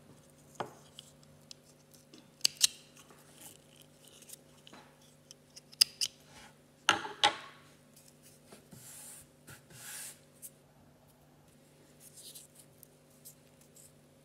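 Close handling noise from a small wire-edged tulle embroidery petal being turned and pressed between the fingers: light rustling with several sharp clicks, some in quick pairs.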